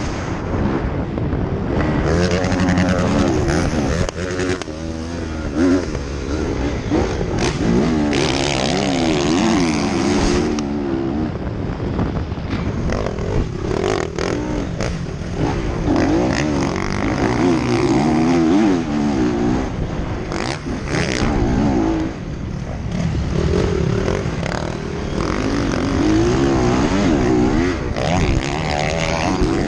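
Motocross motorcycle engines revving hard and falling back over and over as the bikes race, the pitch rising and dropping with each throttle and gear change, with a few sharp knocks.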